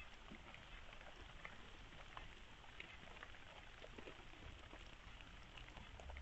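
Near silence: a faint outdoor hiss with scattered soft ticks.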